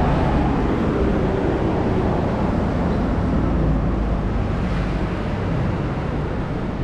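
Road traffic: a steady rush of engine and tyre noise, with one vehicle's engine tone drifting slightly lower in the first couple of seconds.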